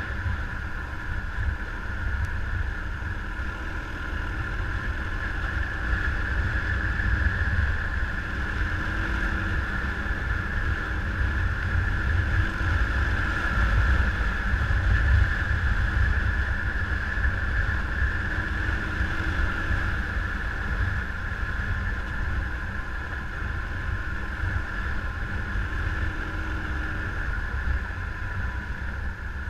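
Motorcycle running steadily on the move, with heavy wind rumble on the microphone and a steady engine drone.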